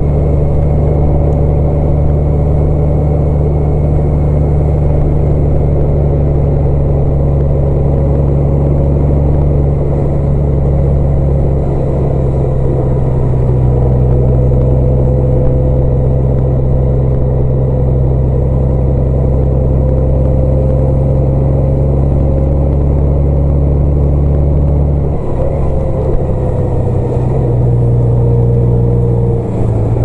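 Road vehicle driving at a steady speed: a continuous engine drone with a steady whine above it, shifting slightly near the end as the speed changes.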